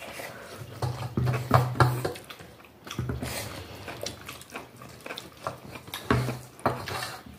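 Close-up eating sounds: chewing and wet lip smacks, with fingers mixing rice and curry on a plate, in short irregular clicks and smacks.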